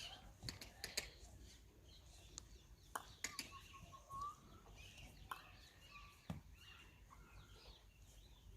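Near silence: faint outdoor background with scattered light clicks and a few faint distant chirps.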